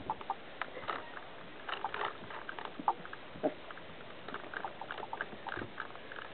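Four-week-old Goldendoodle puppies scuffling and playing on carpet: scattered soft clicks and scrapes, with one sharper short sound about three and a half seconds in.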